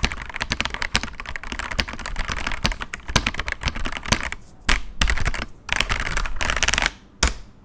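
Fast typing on an Ajazz AK992 mechanical keyboard: a dense, rapid clatter of key clicks. After about four seconds it breaks into shorter bursts with pauses and stops near the end.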